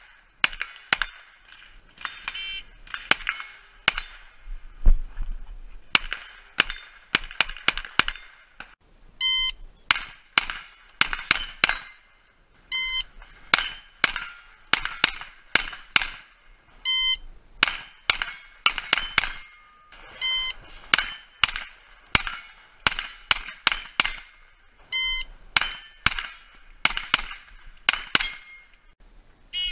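Pistol-caliber carbine fired in rapid strings of several shots at steel plates, with the steel ringing on hits. From about nine seconds in, each string is started by a short electronic shot-timer beep.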